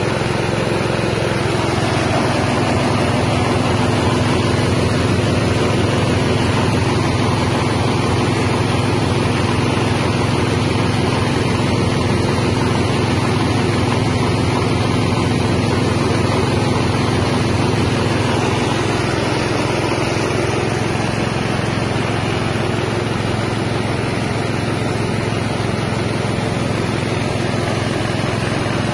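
Mini rice milling machine running steadily, its small 6.5 hp engine driving the mill as it grinds paddy into rice and bran.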